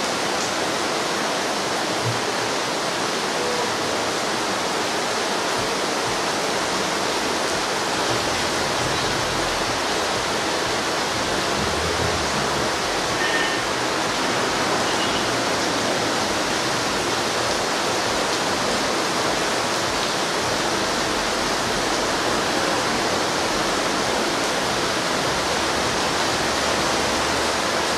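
Torrential rain pouring down in a steady, unbroken hiss.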